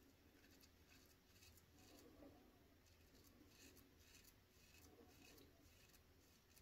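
Faint, repeated scraping of a straight razor cutting through several days' stubble under lather, in many short strokes.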